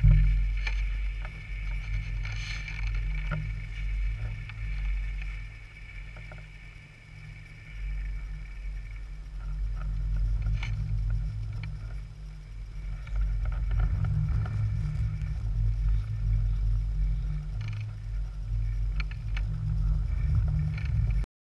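Wind buffeting a GoPro's microphone: a low, uneven rumble that rises and falls in gusts, easing off twice before picking up again and stopping abruptly near the end.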